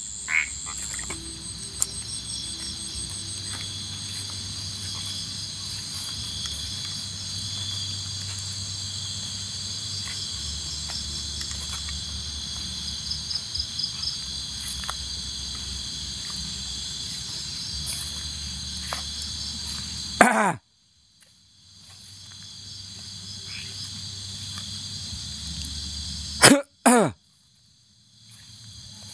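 Night insects, crickets among them, chirping and trilling steadily over a low rumble. The sound cuts out suddenly about two-thirds of the way in and slowly comes back. Near the end there are two short, loud, voice-like sounds.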